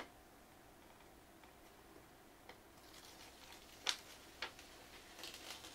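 Faint crackling and a few sharp ticks as the paper backing liner is peeled off the adhesive back of a 3D-printer build sheet, the loudest tick about four seconds in.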